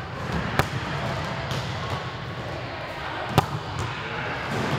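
An open-hand volleyball serve: a sharp smack of palm on ball a little after the start, then a second, louder sharp smack about three seconds later, over the steady noise of a large gym.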